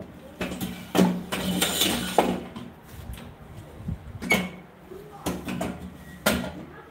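A metal-legged chair being moved on a tiled floor: a run of scraping and clattering over the first two seconds, then three separate sharp knocks.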